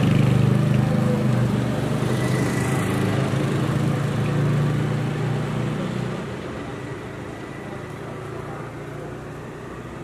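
A motor vehicle's engine running close by with a steady low hum, fading over the second half, over general street traffic noise.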